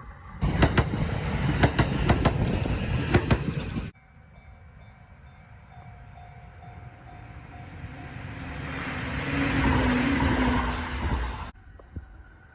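Electric train passing close by, its wheels clacking quickly over the rail joints. After an abrupt cut, a train's running noise swells up to a peak and then cuts off suddenly.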